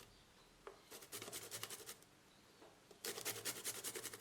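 Hand grater scraping in quick, even rasping strokes, in two runs of about a second each with short pauses between.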